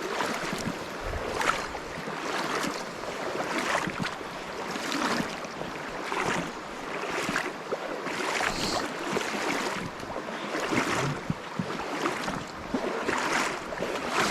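Legs wading through a river, water sloshing with each stride at a steady walking pace, about one splash a second, over the rushing of the current.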